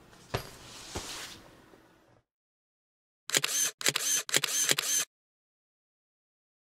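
Camera shutter firing in three quick bursts of rapid clicks, back to back from about three seconds in, as a logo sound effect. Before it, faint room tone with a couple of soft clicks fades out to silence.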